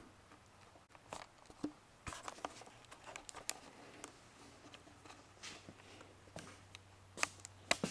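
Faint scattered clicks and taps, as of objects being handled, over a low steady hum.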